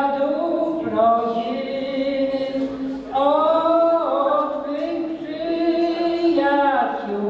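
An elderly man singing solo and unaccompanied, holding long notes, with a brief break between phrases about three seconds in.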